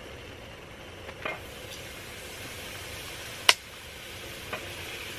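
Marinated beef short ribs sizzling as they are laid on a hot griddle over a wood fire, with metal tongs clicking a few times; the sharpest click comes about three and a half seconds in.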